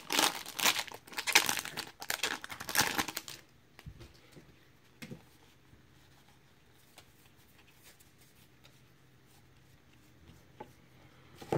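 Crinkly wrapper of a baseball card pack torn open and crumpled in the hands for about three and a half seconds. Then it goes near quiet, with a few faint ticks from the cards being handled.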